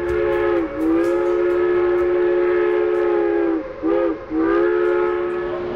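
700 Series Shinkansen horn sounding in repeated blasts: a short one, a long one of nearly three seconds, a brief one, then another long one. Each blast's pitch sags as it cuts off.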